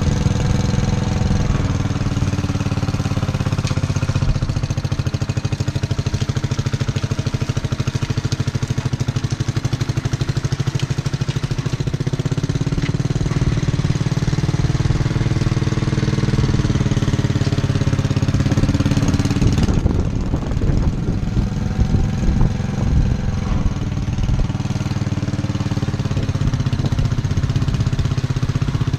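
Worn 8-horsepower engine of an old Squire garden tractor running steadily while it pushes mulched leaves. About twenty seconds in its note turns rougher and more uneven.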